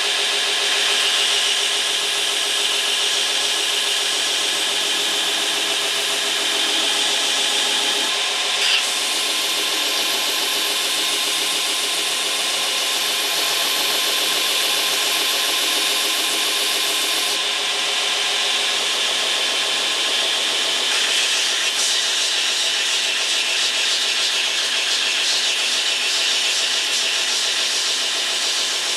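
Belt grinder running with a small-wheel attachment, its sanding belt grinding the knife's handle scales to shape the curves: a steady whirring, sanding hiss.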